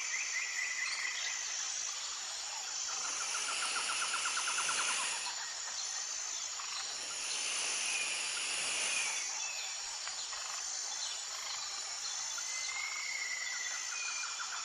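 Insects chirping and trilling in a natural chorus: a steady, rapidly repeated high chirp, short pulsed trills, and two longer buzzing spells partway through.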